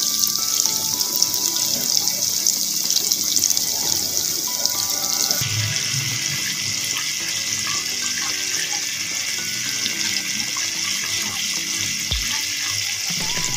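Flour-coated chicken wings deep-frying in hot oil: a steady, dense sizzle and crackle. Its tone turns a little duller about five seconds in.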